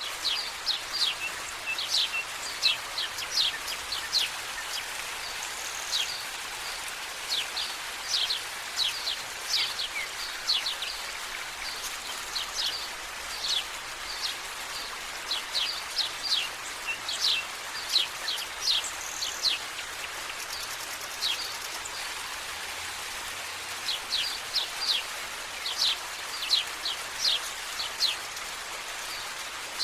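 Outdoor valley ambience: birds chirping in quick runs of short, sharp, high chirps, pausing for a few seconds about two-thirds of the way through, over a steady hiss.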